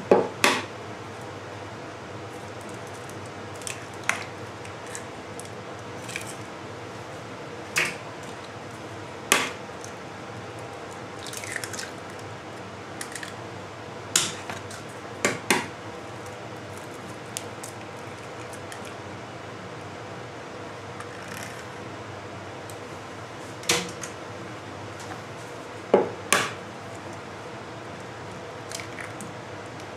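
Eggs being cracked one at a time into a plastic mixing bowl: a sharp tap or two every few seconds as each shell is knocked open, with softer shell and liquid sounds in between. A faint steady hum runs underneath.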